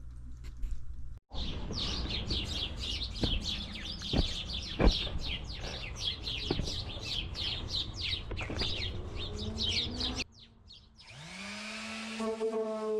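Sandpaper rasping in quick, even back-and-forth strokes over the epoxy and wood hull of a model racing hydroplane, with a few sharp knocks. The sanding cuts off near the end and music rises in.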